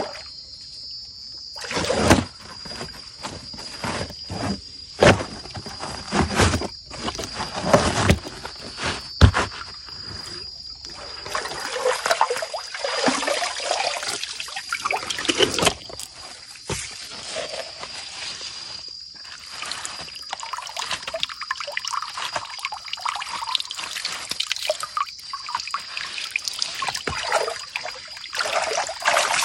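Water trickling and splashing as wet carpet mats are lifted and laid into a gold sluice, with scattered knocks and thumps of handling, most of them in the first ten seconds. A steady high insect drone sounds under it.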